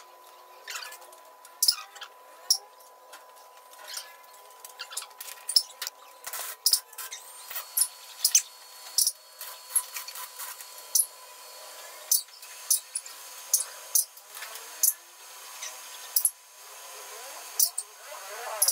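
Irregular sharp metallic clicks and clanks of hand tools and steel parts being handled and fitted at a tractor's front axle and power-steering linkage, over a faint steady high whine.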